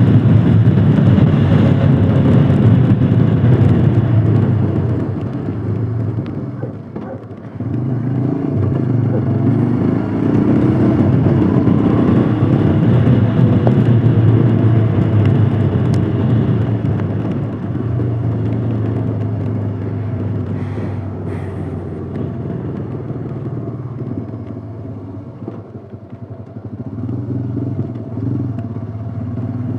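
Royal Enfield Himalayan Scram 411's 411 cc single-cylinder engine running under way on the road, easing off briefly about seven seconds in, pulling harder again, then dropping back through the second half before picking up near the end.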